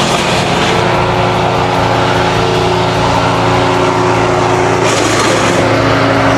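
Engine-driven wood chipper running steadily as it chips pruned mango branches, with a brief rise in hiss about five seconds in.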